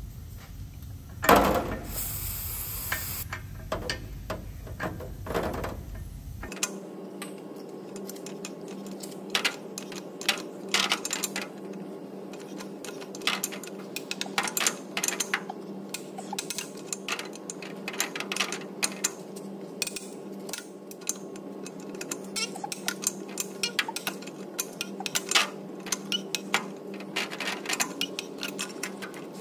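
An aerosol penetrating spray hisses onto the exhaust-mounted NOx sensor for about two seconds near the start. Then a long ratchet and socket clicks in short runs, with small metallic clatters, as the tight NOx sensor is turned out of the exhaust pipe a few turns at a time.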